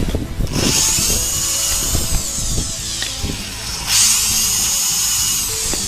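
Foster FSD-010 corded 350-watt power screwdriver-drill drilling into plywood. Its motor whine starts about half a second in and again near four seconds in, each time sagging slightly in pitch as the bit bites.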